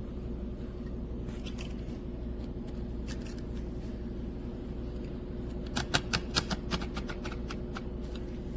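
Small battery-powered clip-on fan running steadily with a low motor hum, and a quick run of about eight light clicks about six seconds in.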